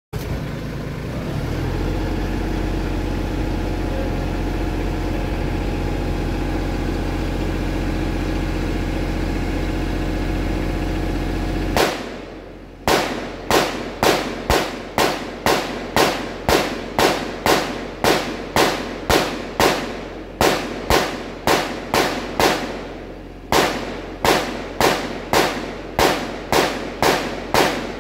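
A tractor engine runs steadily for about the first twelve seconds, then drops away. An AR-15 chambered in 7.62x39 then fires a fast string of shots, about two a second, with a one-second pause near the end.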